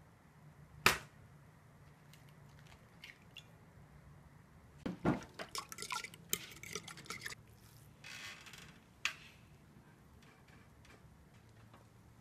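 An egg cracked on the rim of a ceramic bowl, a single sharp knock about a second in. A few seconds later a fork beats eggs in the bowl, with a quick run of metal-on-ceramic clinks and scrapes and the wet slosh of the eggs.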